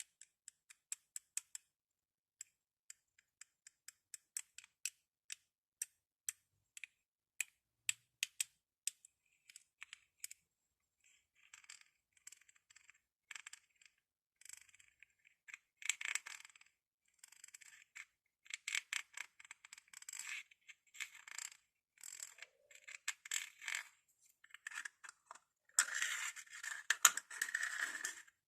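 Glass bottles handled for ASMR: a run of quick, sharp taps and clicks, giving way after about ten seconds to denser scratching and rubbing sounds that grow loudest near the end.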